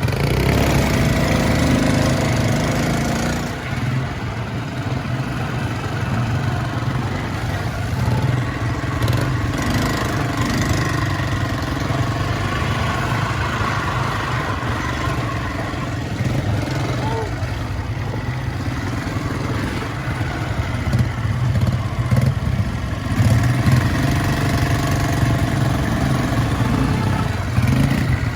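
ATV quad-bike engine running as it is ridden, steady, with its level dropping a little a few seconds in and picking up again near the end.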